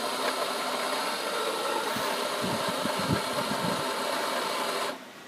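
Mahlkönig Vario K30 flat-burr espresso grinder grinding coffee into a portafilter on its timed double dose, set to 5.2 seconds. The motor starts suddenly, runs steadily for about five seconds and cuts off near the end.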